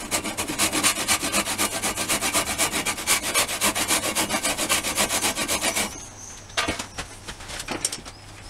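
Handsaw cutting through a green pear-wood blank in quick, even strokes, about five a second, which stop about six seconds in as the piece comes free. A few knocks and handling sounds follow.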